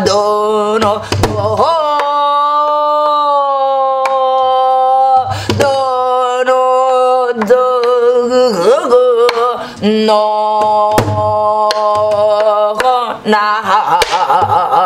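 Korean gueum singing: nonsense vocables imitating instrument sounds, sung in long held notes that waver and slide, with a lower voice or drone held beneath. A few low drum strokes mark the rhythm.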